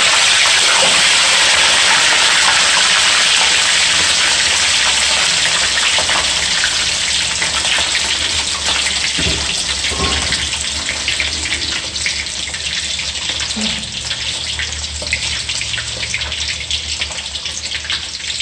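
Whole carp sizzling loudly as it is lowered into hot oil in a wok, then frying steadily, the hiss slowly dying down.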